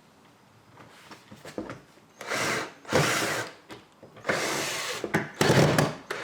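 Cordless drill driving screws into wood in four short bursts, starting about two seconds in.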